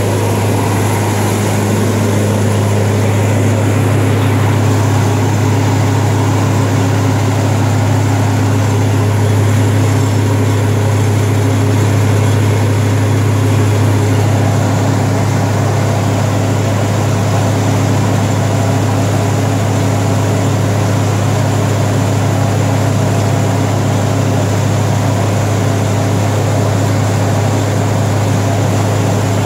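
Lincoln SA-200 engine-driven welder running steadily at a constant speed with its freshly rebuilt carburettor, giving an even drone with no surges or stumbles.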